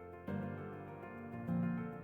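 Soft solo piano background music, with a new chord struck about a quarter-second in and a louder, lower one about a second and a half in.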